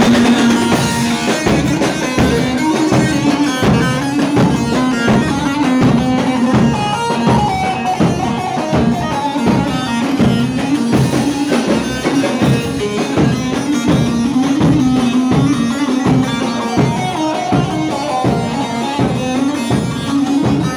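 Live halay dance music: a davul bass drum beating a steady, even rhythm under a melody line.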